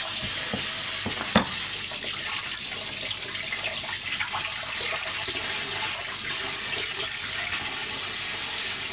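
Kitchen tap running steadily into a stainless-steel sink as a herring is rinsed under it, with one sharp knock a little over a second in.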